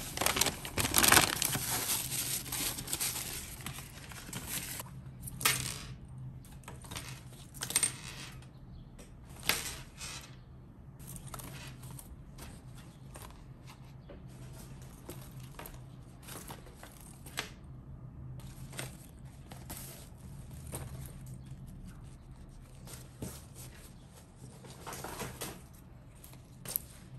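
Crinkling plastic packaging and rustling as small packaged items are handled and set down on a desk. The sound is dense and continuous for the first few seconds, then comes in short, separate rustles.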